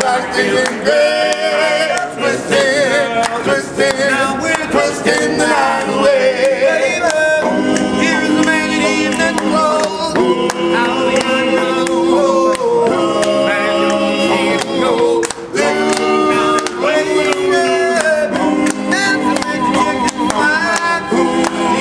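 A cappella group of men singing in harmony, with chords held under a lead voice that moves above them. Sharp clicks sound through the singing.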